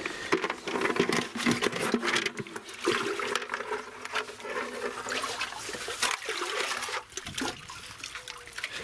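Water pouring and splashing, with irregular clatter and knocks throughout.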